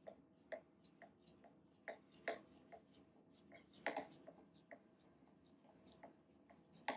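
Near silence broken by faint, irregular clicks and light ticks as the milling machine table is moved along its Y-axis, sweeping a dial test indicator along a granite square.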